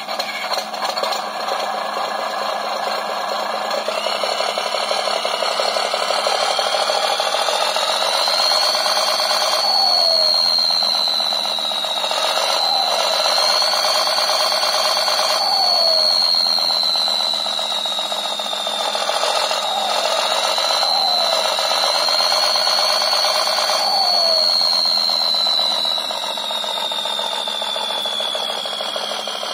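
Electronic RC engine-sound module playing a simulated engine whose revs rise and fall with the transmitter's throttle trigger. It revs up and back down three times, then the revs slide down near the end as the throttle is released.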